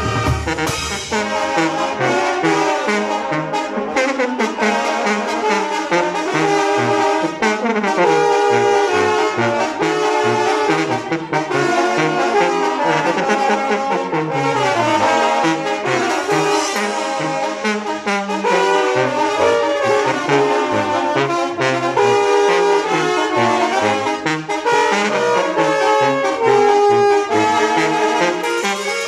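Mexican banda of clarinets, trumpets, saxophones, sousaphone and drum kit playing a lively tune, the clarinets and brass carrying the melody over the sousaphone's bass line.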